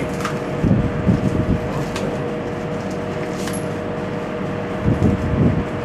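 A braided steel water mixer hose and its plastic wrapping being handled, with a few light clicks, over a steady background hum and a low rumble.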